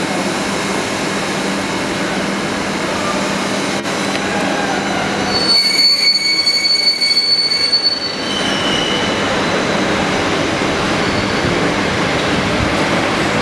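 Type 141A passenger coach getting under way, heard from inside its compartment: a steady rolling rumble, with a loud high-pitched wheel squeal lasting about two seconds midway and a shorter, fainter squeal just after it.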